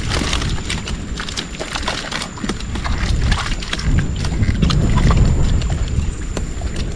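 Freshly netted fish flopping in the bottom of a wooden boat: an irregular patter of quick slaps and knocks on the planks, over a steady low rumble.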